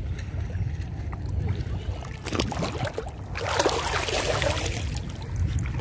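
Shallow seawater sloshing around a wading person, under a steady wind rumble on the microphone. About halfway through there is a louder burst of splashing lasting over a second.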